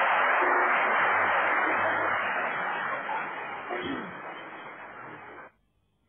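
Audience applause in an old live concert recording with narrow, radio-like sound, dying away gradually and then cut off abruptly near the end.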